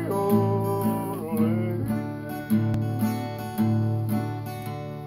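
Acoustic steel-string guitar played in a steady country rhythm, bass notes under strummed chords about once a second.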